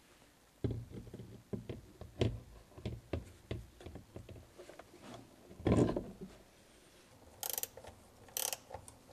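Knocks and thumps of an Autoterm Air 2D diesel heater being handled and set down onto its stainless steel mounting plate on a plywood van floor, the loudest thump about six seconds in. Near the end come a few short scraping bursts.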